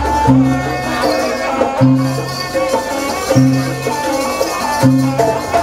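Traditional jaranan (kuda lumping) dance accompaniment music: a low pitched stroke about every one and a half seconds under a busy higher melody and rattling percussion.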